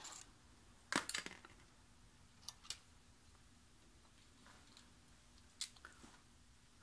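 Light metallic clinks and clicks of brake pads and small caliper parts being handled: a sharp cluster about a second in, two quieter taps near the middle and two more near the end.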